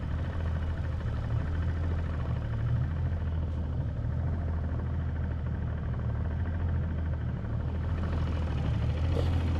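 Small boat's outboard motor running steadily, a low even hum.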